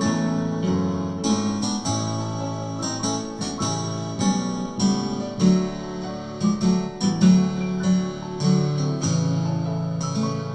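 Music with plucked guitar and keyboard playing together, notes struck in a steady flow.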